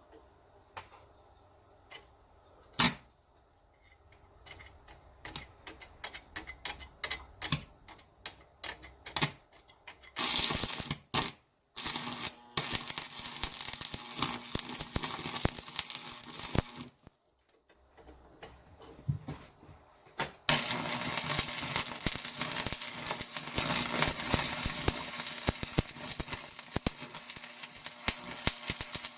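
Electric arc welding on steel, a dense spitting crackle over a steady hum, coming in short bursts and then in two longer runs of several seconds each. The first third holds only scattered clicks and taps from handling the metal pieces.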